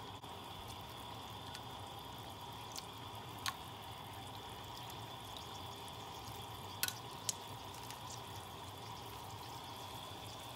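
Vegetable curry in coconut milk simmering quietly in a frying pan, with a few light clicks of a metal spoon against the tin can as chickpeas are spooned in, two of them close together about seven seconds in.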